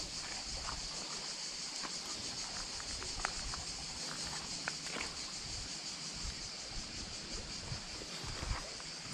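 A steady, high-pitched chorus of insects buzzing without a break, with a few light clicks here and there.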